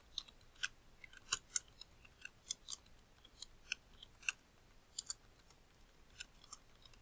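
Faint typing on a computer keyboard: irregular key clicks, two or three a second.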